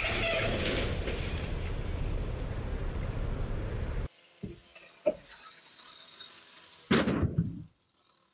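A steady low rumble of a motorcycle engine and street traffic, cut off abruptly about four seconds in. After a few faint knocks, a sudden loud bang about seven seconds in dies away within about a second.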